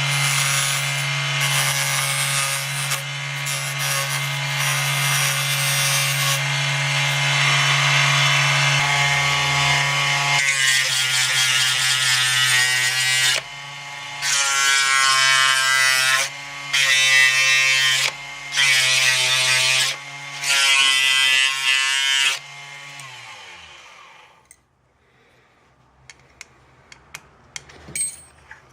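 Raitool 80W 24V DC mini lathe motor humming steadily while a hardwood workpiece is scraped as it spins: one long stretch of scraping, then five short spells of it. About 23 seconds in the motor is switched off and winds down, leaving only a few small clicks.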